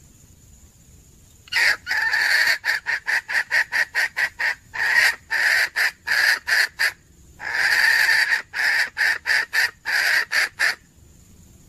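Red junglefowl hen calling: two long bouts of loud, rapid cackling notes at about four a second, each bout opening with a longer note, with a short pause between them. It is the hen's call for a rooster.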